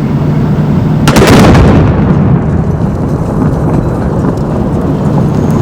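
Special-effects car explosion: a single sudden blast about a second in, dying away over a second or so into a steady low rumble.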